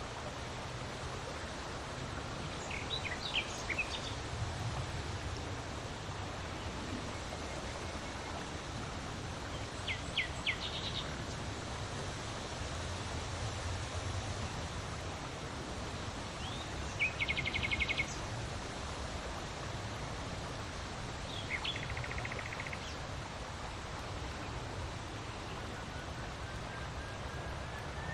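Steady wind blowing, with a low rumble. Small birds call over it a few times, short chirps and quick rapid trills.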